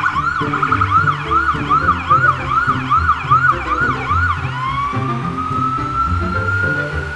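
Emergency vehicle siren yelping in quick rise-and-fall sweeps, about two a second, then switching to a single slow rising wail about four and a half seconds in, over background music.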